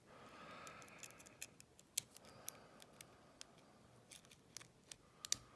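Faint, irregular metallic clicks and ticks of a lock pick working the pin stack of an old Yale padlock under light tension from a tensioner in the top of the keyway.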